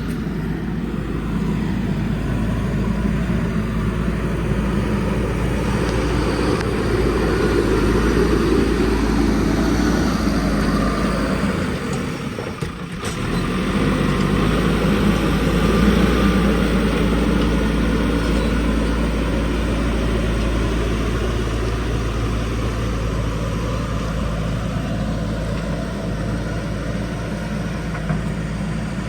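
Backhoe loader's diesel engine running steadily under work, its level rising and falling, with a brief dip about twelve seconds in.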